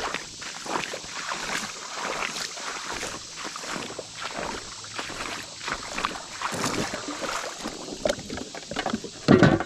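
Footsteps and handling noises: irregular crunches and knocks, with one loud thump near the end.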